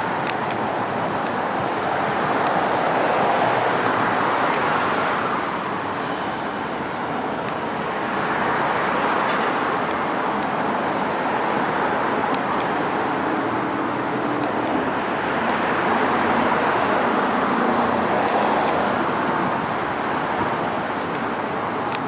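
Road traffic going past, a steady rush of tyre and engine noise that swells and fades every few seconds as vehicles pass.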